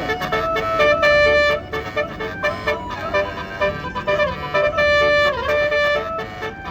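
Indonesian bus's 'telolet basuri' musical horn playing a tune: a melody of held notes over a quick repeating pattern, with a falling glide about five seconds in.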